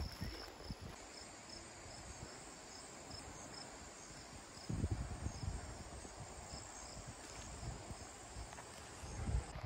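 Crickets chirping faintly: a steady high trill with short chirps repeating at an even pace. A low rumble on the microphone comes about five seconds in and again near the end.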